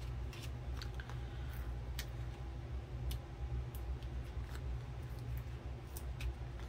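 Scattered light clicks and taps from small papercraft supplies being handled while foam adhesive dimensionals are looked for, over a low steady hum.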